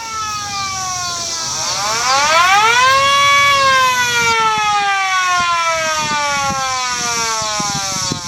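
Modified Federal Signal 2T22 mechanical rotor siren sounding a wail. It winds down, spins back up quickly to a peak about three seconds in, then coasts slowly down in pitch, its several tones sliding together.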